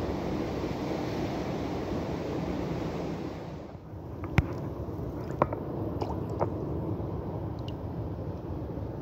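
Steady wind and sea-surf noise. Then, in a quieter stretch, a few small sharp water drips and splashes in a shallow rock pool, the loudest about four and a half seconds in.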